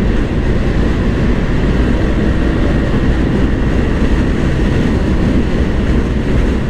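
Steady wind rush and engine and road noise from a Honda PCX 160 scooter being ridden at about 90 to 100 km/h, heavy in the low end.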